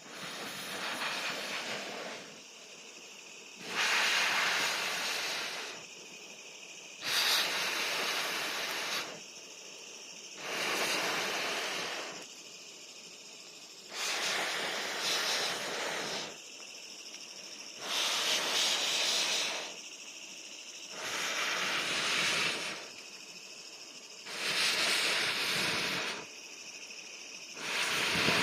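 Breath blown into a campfire through a Fire Blaster telescopic blow pipe: about nine long rushing hisses of air, each about two seconds, in a slow even rhythm, with a softer steady hiss between them.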